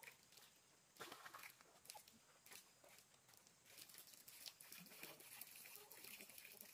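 Near silence, with faint scattered crunches and rustles.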